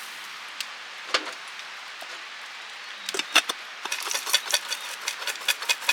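Popcorn kernels starting to pop in a pot: a couple of single pops, then pops coming faster and faster from about three seconds in, over a steady hiss.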